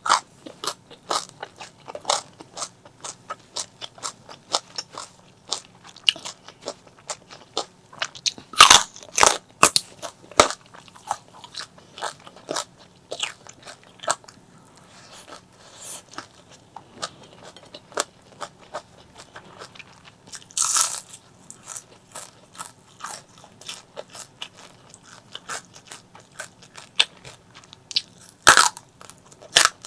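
Close-miked eating: a person biting and chewing crunchy food, with quick crackly crunches and several louder bites about a third of the way in, near the middle and near the end.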